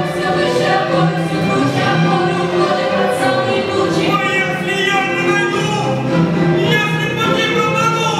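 Music with a choir singing in long held notes that change pitch every second or so.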